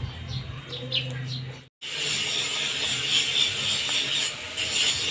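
Small birds chirping over a low steady hum. About two seconds in, the sound cuts out for a moment and is followed by steady outdoor background noise with a high hiss.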